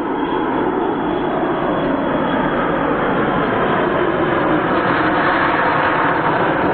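Twin JetsMunt Merlin model jet turbines of a giant-scale RC English Electric Lightning running at high power on a fast low pass: a loud, steady jet roar with a thin high whine that slides slightly lower, swelling a little in the second half.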